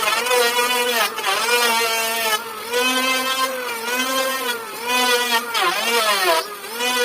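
Electric power tool's motor running while cutting wood, its pitch sagging under load and recovering about once a second as it bites and eases off.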